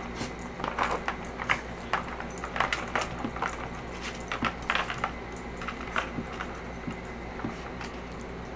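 Irregular clicking and clattering of a hard plastic dog puzzle feeder as a puppy noses and paws at its pieces and slides a wedge aside to get at the treat, with the light jingle of her collar tag. The clicks come thickest in the first half and thin out toward the end.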